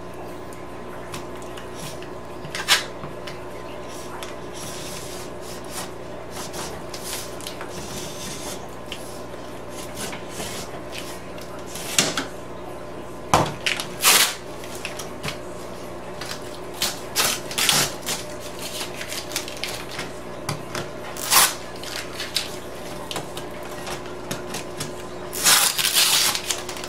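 Scattered knocks, clicks and scrapes of a utility knife and steel ruler being handled on a twin-wall polycarbonate sheet, over a steady low hum. The loudest knocks come about twelve to fourteen seconds in, and a crackling rustle near the end comes from masking tape being pulled from the sheet.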